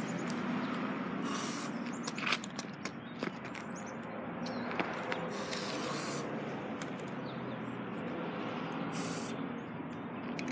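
Aerosol spray paint can hissing in three short bursts, about a second and a half in, near the middle and near the end, with scattered light clicks between the bursts.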